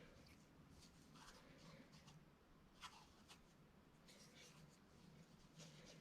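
Near silence: faint room tone with a few light clicks and rustles scattered through it.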